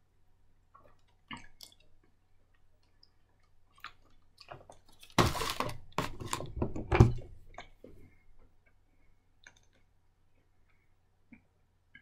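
Close handling noise: scattered light clicks, then about two seconds of loud crackling rustle about five seconds in, settling back to faint clicks.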